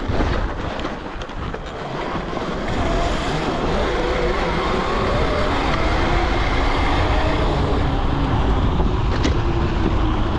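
72-volt Razor electric dirt bike under way, its motor whining with rumbling tyre noise on icy snow and wind on the microphone; the sound builds over the first few seconds, then holds steady.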